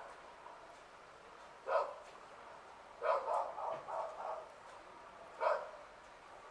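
A dog barking out of sight: a single bark, then a quick run of about five barks, then one more.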